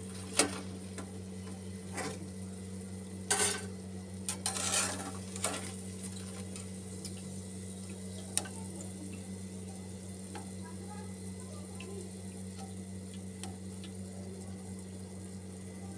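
Perforated metal skimmer scraping and clinking against a kadai as fried bread rolls are lifted out of hot oil, with a few knocks in the first six seconds or so. Underneath, oil sizzles faintly over a steady low hum.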